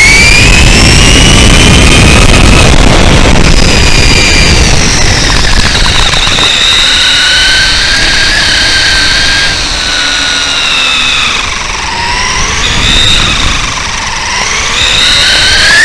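Whine of an RC truck's brushless electric motor and geared drivetrain (Hobbywing 2200kv motor, 23/54 pinion and spur), heard from on board, rising and falling in pitch as the truck speeds up and slows. A low rumble runs underneath, strongest in the first half.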